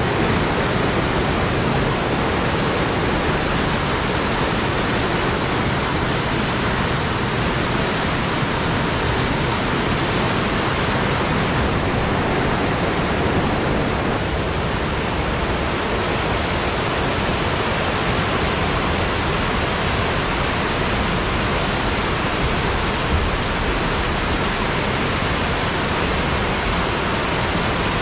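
Chilliwack River running high and fast in flood after torrential rain: a steady, unbroken rush of water.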